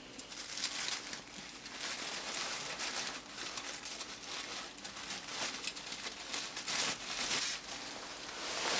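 Plastic packaging crinkling and rustling in irregular bursts as it is handled and unwrapped.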